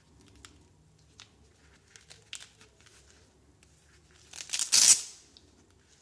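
A hook-and-loop (Velcro) belt strap on a fabric knife sheath is ripped open once, a harsh rasp lasting about a second near the end. Before it come a few seconds of light handling taps and rustles.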